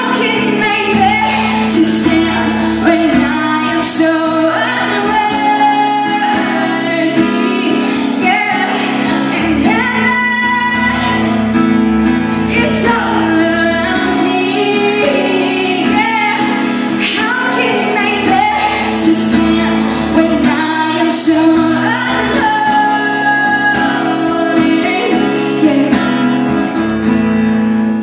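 A woman singing a live song over steady instrumental backing, her voice moving in long melodic lines with no clear words.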